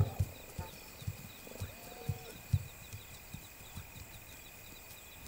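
Night grassland ambience: insects chirping, with a steady high trill and a quick run of small repeated chirps. Under it runs a string of soft low thuds roughly every half second, and a faint brief wavering call sounds about two seconds in.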